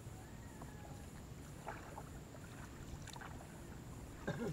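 Paddling a small boat on calm lake water: a few faint paddle strokes and soft knocks over a low haze of wind and water.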